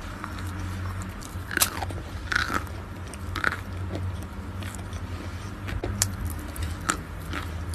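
A block of chalk being bitten and chewed close to the microphone: irregular crisp crunches and crackles, a few louder bites among them, over a steady low hum.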